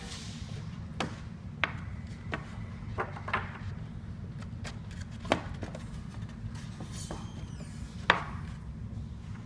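Scattered sharp knocks and clacks from the parts of a foldable trundle bed frame being handled and fitted together, the loudest about five and eight seconds in. A steady low hum runs underneath.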